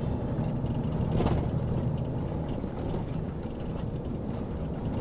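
Truck's diesel engine running steadily, a low hum heard from inside the cab of a milk tanker truck.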